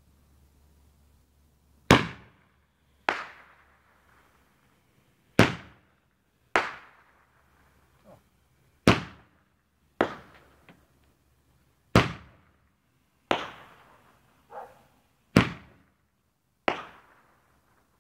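Fireworks going off: ten sharp bangs, mostly in pairs about a second apart, each trailing off in a short echo, with a few fainter pops between them.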